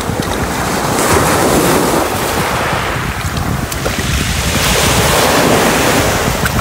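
Wind buffeting the microphone over rushing water that surges in two swells.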